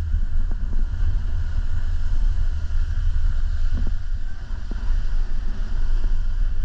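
Wind buffeting the microphone: a steady low rumble, with a few faint knocks.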